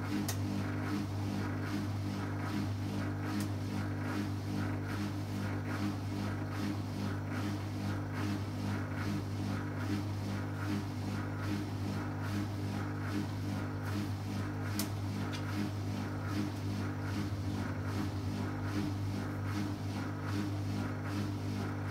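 Beko BKY 2317 B front-loading washing machine running through its short 30-degree programme: a steady motor hum with a regular pulsing about twice a second. A few sharp clicks stand out, one near the start, one a few seconds in and one about two-thirds through.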